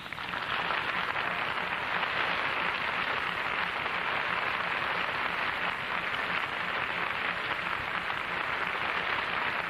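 Studio audience applauding steadily, heard through a dull-sounding early-1950s television recording.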